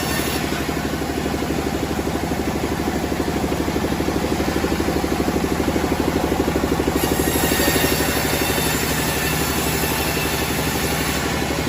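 Engine running steadily at an even speed, with a rapid regular firing pulse and no load change.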